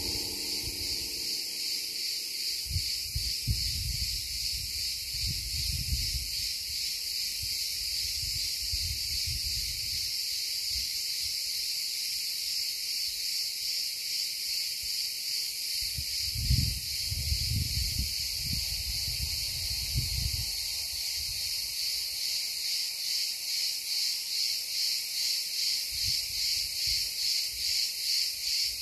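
Cicadas shrilling in a dense, steady chorus, pulsing more strongly toward the end. Low rumbling gusts of wind hit the microphone a few seconds in and again about halfway.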